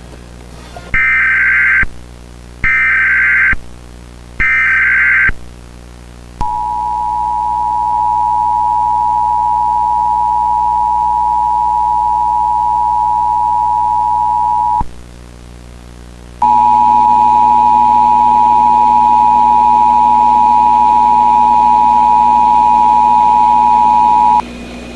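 Emergency Alert System broadcast tones. Three short bursts of digital SAME header data sound first, then the steady two-tone EAS attention signal (853 and 960 Hz) holds for about eight seconds. After a short break it returns for about eight more seconds with a hiss and faint extra tones under it.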